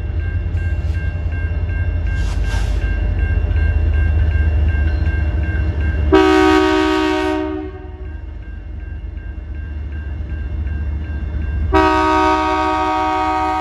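Locomotive multi-chime air horn sounding a chord: one blast of about a second and a half about six seconds in, then a second long blast starting near the end. Under it, the steady low rumble of the train and a fast, evenly repeating ring.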